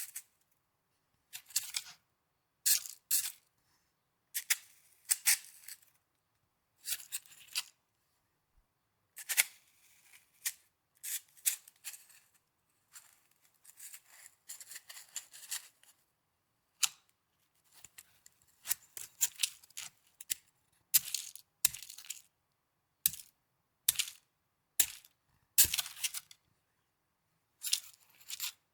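Snow being handled and crunched, heard as a series of short crunches in irregular bursts with silent gaps between them, some coming in quick clusters.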